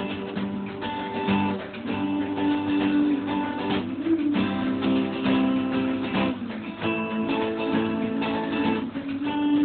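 Acoustic guitar strummed, chords ringing with held notes, in an instrumental passage of an unplugged song cover.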